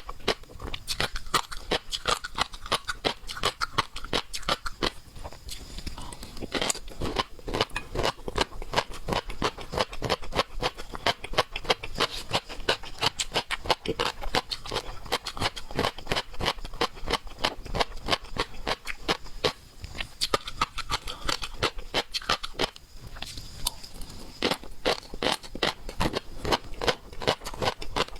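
Close-miked eating of seafood: steady chewing and wet smacking, a quick run of mouth clicks several times a second.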